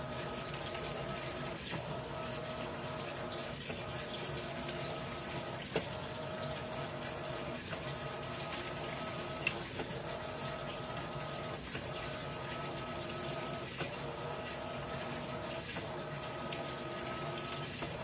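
Electrolux LAI17 17 kg top-load washing machine running with water in the tub: water rushing and sloshing over a steady machine hum, which dips briefly about every two seconds.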